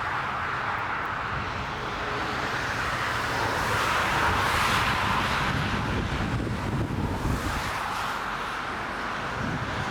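Strong gusty storm wind rushing in swells, buffeting the microphone with a ragged low rumble.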